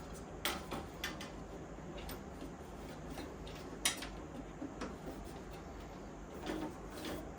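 Scattered clicks and knocks of 3D-printed plastic fan brackets and fans being handled and pushed into a server chassis as they are test-fitted, the sharpest knock about four seconds in, over a steady low background hum.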